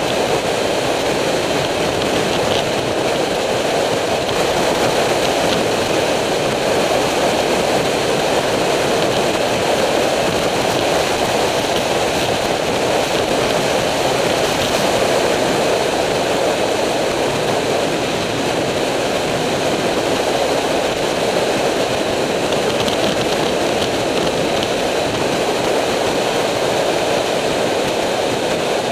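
Steady rush of wind and road noise on a motorcycle-mounted camera as a Triumph Street Triple rides at constant road speed, with no change in pace.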